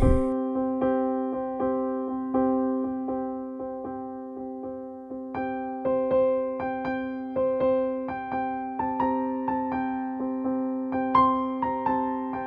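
Background music: a soft electric piano playing steady repeated notes about twice a second over held chords, with a higher melody coming in about halfway through.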